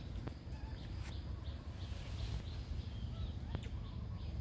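Outdoor forest ambience: short, faint high chirping calls scattered over a steady low rumble, with a few soft clicks.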